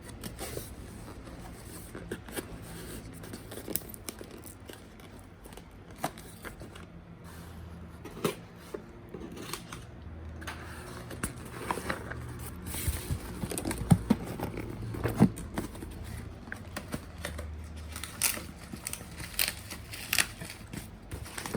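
Parcel packaging being opened by hand: crinkling, tearing and scraping with scattered sharp clicks, busier in the second half.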